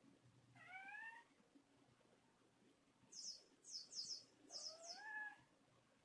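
Thai cat meowing quietly in two short, rising, complaining calls, one about half a second in and one near the end: a jealous cat grumbling. Between them comes a quick run of very high, falling squeaks.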